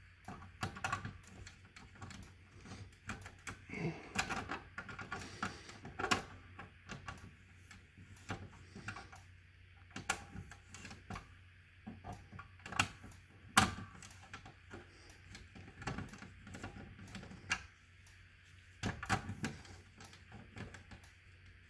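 Irregular clicks, taps and knocks of small hard parts being handled, some bunched together, with one sharper snap about two-thirds of the way through; no alarm sounding.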